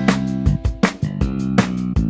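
Upbeat background music: strummed guitar and bass over a steady drum beat.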